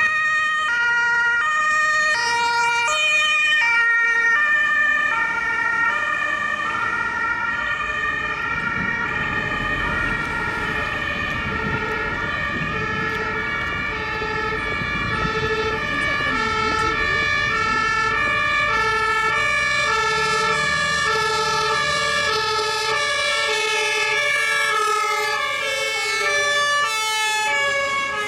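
German two-tone emergency sirens (Martinshorn) from ambulances and an emergency doctor's car on an emergency run, switching back and forth between a high and a low note. At first one siren is heard, and from about five seconds in two or more overlap out of step. Vehicle engine and tyre rumble rises in the middle as they pass.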